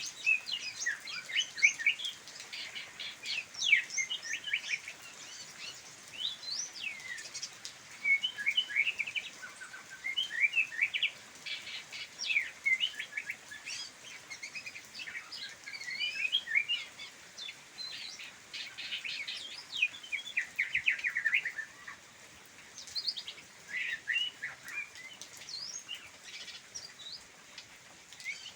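Songbird singing: a rapid, varied run of chirps, trills and sliding whistled notes, nearly continuous with a short lull about three-quarters of the way through.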